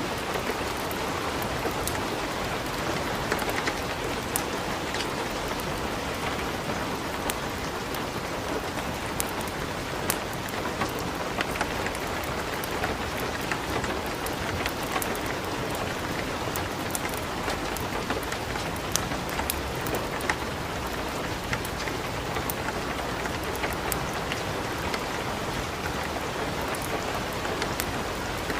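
Steady light rain with a wood fire crackling in a fireplace, sharp scattered pops and snaps over an even hiss.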